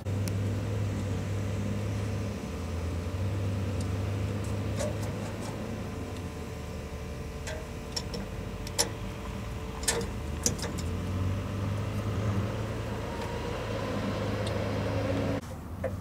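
Truxor DM 5000 carrier's engine running steadily, with a few sharp metal clicks and clanks about eight to ten seconds in as the wood chipper's discharge chute is swivelled by hand.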